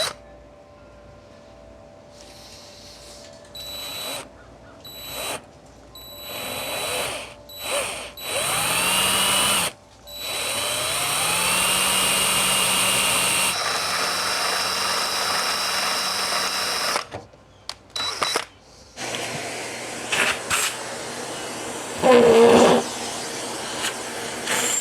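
Power drill with a small bit boring out a knob's shaft hole: the trigger is pulsed in short bursts, then the drill spins up with a rising whine and runs steadily for several seconds before stopping. A brief louder sound comes near the end.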